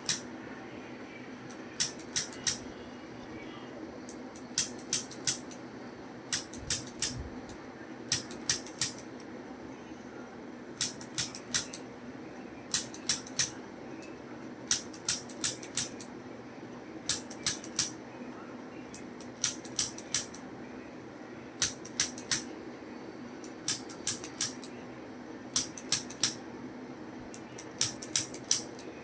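Handheld chiropractic adjusting instrument firing sharp clicks in quick groups of three or four, about every two seconds, over a steady low hum.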